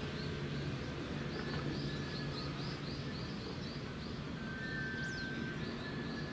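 Outdoor ambience: a steady low hum, with a run of short high chirps repeating about four times a second through the first half and again near the end, and one quick falling whistle about five seconds in.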